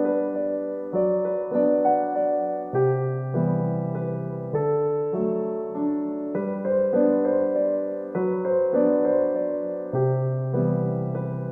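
Background music: a gentle piano-like keyboard piece, notes and chords struck every half second or so, each fading after its attack.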